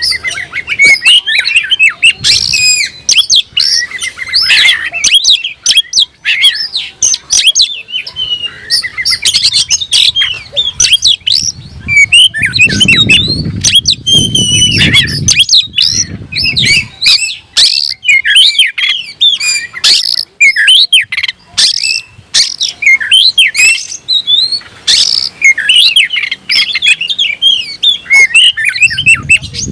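Oriental magpie-robin (kacer) singing loudly and without pause: a rapid, varied stream of whistles, chirps and harsh notes. This is the bird in full challenge song, as it sings when looking for a rival. A low rumble sits under the song for a few seconds midway.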